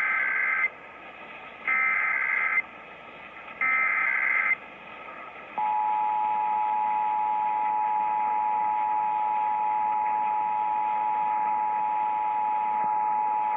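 Emergency Alert System signal for a Required Monthly Test, heard over a radio broadcast: three short bursts of SAME header data tones, each just under a second with about a second between them, then about five and a half seconds in the steady two-tone EAS attention signal starts and holds. A faint hiss lies under the gaps between the bursts.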